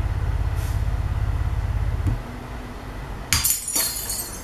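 A glass-breaking sound effect played through Sony SS-H12 loudspeakers: a sudden shattering crash about three seconds in, followed by tinkling shards for about a second. Before it, a loud low drone stops about two seconds in.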